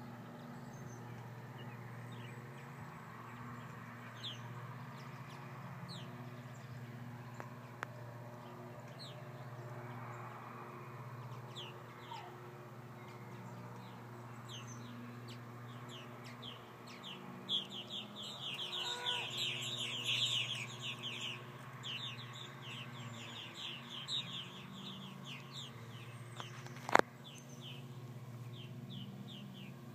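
Purple martins calling in flight around their colony: many short, quick chirps that swell into dense overlapping chatter about two-thirds of the way through, over a steady low hum. One sharp click near the end is the loudest sound.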